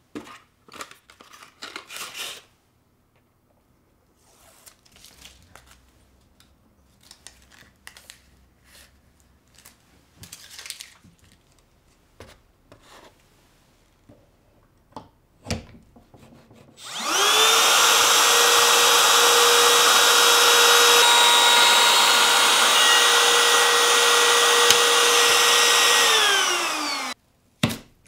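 Makita 18V cordless trim router spinning up and routing into an MDF board with a steady high whine over the noise of the cut, then winding down after about ten seconds. Before it starts, light clicks and knocks of parts being handled and set up on the bench.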